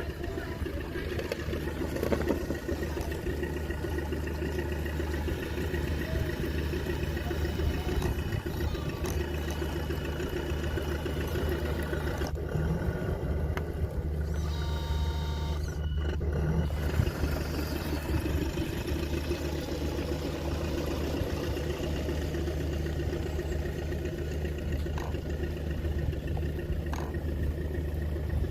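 Mini bulldozer's engine running steadily, with a brief higher-pitched tone about halfway through.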